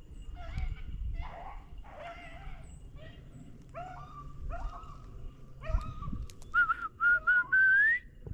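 Beagles baying over and over while running a rabbit's trail. Near the end, loud whistling in a few short notes and then a longer note that rises in pitch.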